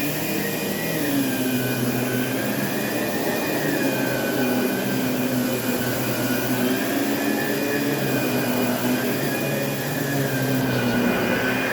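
Vacuum cleaner running steadily on carpet, its motor whine rising and falling slowly every couple of seconds.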